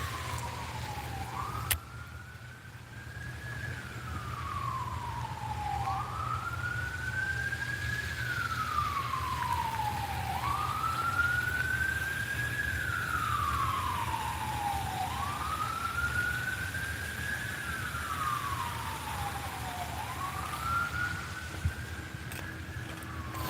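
Emergency vehicle siren in wail mode: its pitch climbs, then slides back down, about five times, one cycle every four and a half seconds, over a steady low hum.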